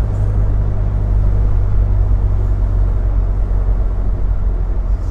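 Triumph Herald 13/60's 1300cc four-cylinder engine running steadily on the move, with a low rumble of road and wind noise, heard from inside the car.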